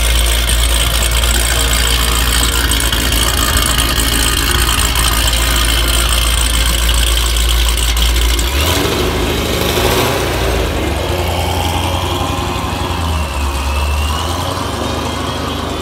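Dodge Challenger drag car's engine idling loudly through its exhaust, then pulling away about nine seconds in, the engine note rising and slowly fading as the car drives off.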